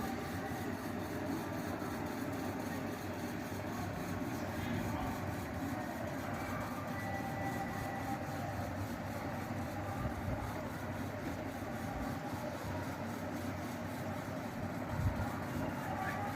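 Steady background noise with a low rumble, and a single thump about fifteen seconds in.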